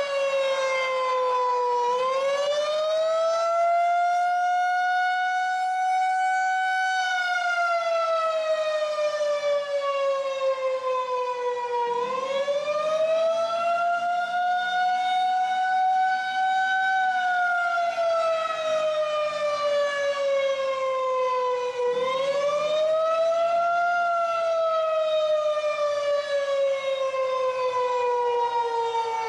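Federal Signal 2001-130 outdoor warning siren sounding the Attack signal, the tornado warning test. Its wail slowly rises and falls in pitch, climbing for about five seconds and sinking for about five, repeating about every ten seconds.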